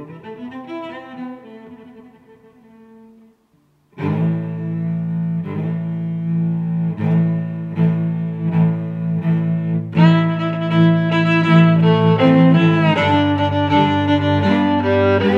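Background instrumental music. One passage fades out, there is a brief silent gap, and a new piece starts about four seconds in with held low notes, growing fuller and louder about ten seconds in.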